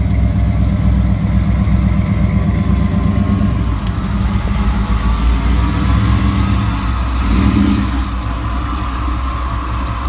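Swamp buggy engine running steadily, heard close up beside the chassis.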